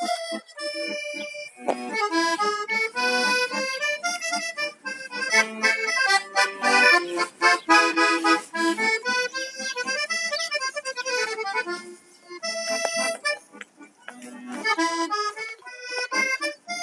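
Accordion playing a melody over chords, the notes changing in quick steps; the playing dips briefly about twelve seconds in and again about fourteen seconds in.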